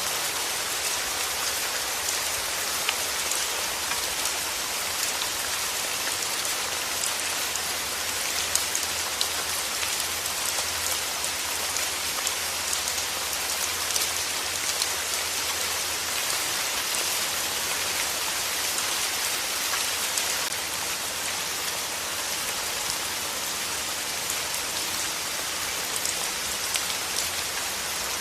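Steady rain falling, an even, dense hiss sprinkled with many small sharp drop ticks.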